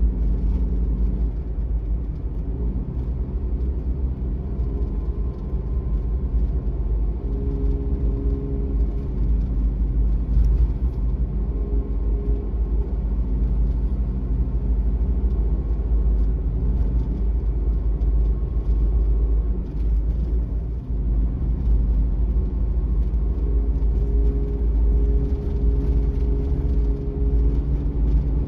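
Suzuki Every kei van's three-cylinder engine and tyre noise heard from inside the cabin while driving: a steady low rumble, with the engine note shifting in pitch a few times as the speed changes.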